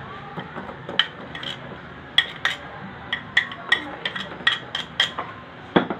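A metal spoon clinking and scraping against a small ceramic saucer as sliced ginger is pushed off into a tub of marinade. It makes a series of sharp, bright clinks, about a dozen over four seconds, with a duller knock near the end.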